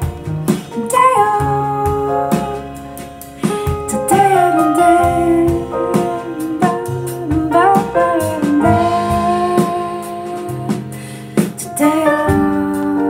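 Recorded jazz-style music with piano and a gliding lead melody line, played from a VPI turntable through an LKV Research phono stage and heard from the room's loudspeakers.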